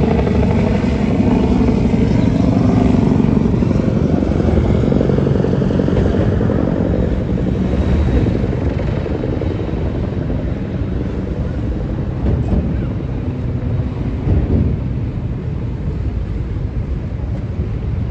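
Helicopter engine and rotor drone with a slowly falling pitch, fading after about eight seconds, over wind buffeting the microphone.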